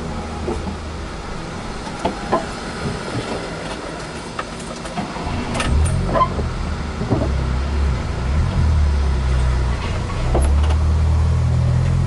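Car engine running at low revs. Its hum grows louder about halfway through and again near the end, with a few scattered knocks and clicks.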